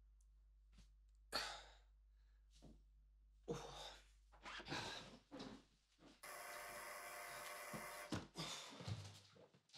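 Door-entry intercom buzzer sounding steadily for about two seconds, about six seconds in, with a few short noises before and after it.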